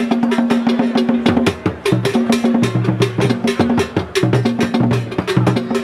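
Music with a fast percussion beat of sharp, evenly repeating strokes over a steady bass line.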